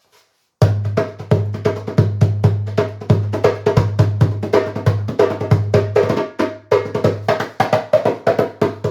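A 10-inch Meinl djembe with a synthetic head, played by hand in a quick rhythm that starts about half a second in. Deep ringing bass strokes mix with sharper, higher strokes.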